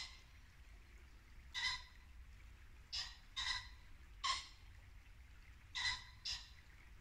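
Muntjac deer barking: about six short, sharp barks at irregular gaps of half a second to a second and a half, over the faint steady rush of a brook.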